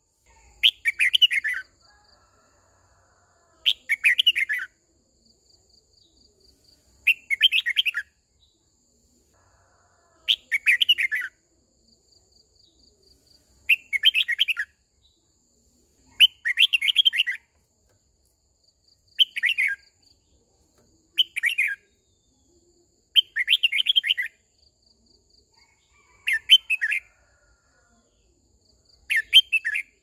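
Red-whiskered bulbul singing short, warbling phrases of about a second each, repeated roughly every three seconds. This is the song of a decoy bird calling to the flock.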